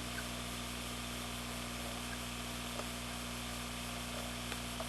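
Steady hiss with a low electrical hum underneath and a few faint clicks: background noise of the recording with no other sound.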